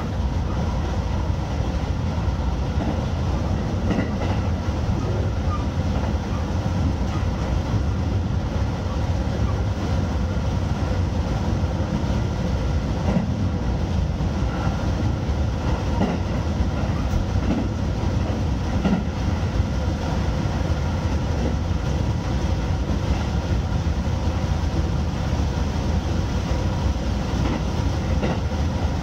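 Electric multiple-unit train running at speed, heard from inside the driver's cab: a steady rumble of wheels on rail with a faint steady hum and occasional light ticks.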